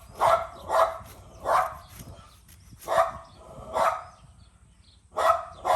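Domestic dog barking: about seven sharp barks in uneven pairs and singles. The dog is barking at its own owner.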